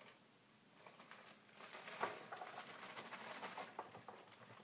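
Frozen potato tots poured from their plastic bag onto a baking sheet: a quick pattering rattle of many small hard pieces landing, with the bag crinkling. It starts about a second and a half in.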